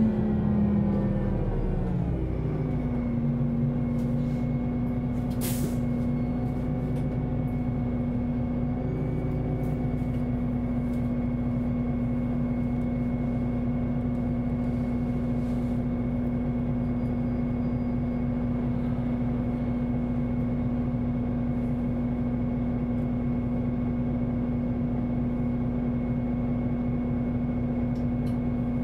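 Solaris Urbino 18 articulated bus's Euro 6 diesel engine dropping in revs over the first two seconds, then idling steadily with a constant hum. A short hiss of air comes about five seconds in.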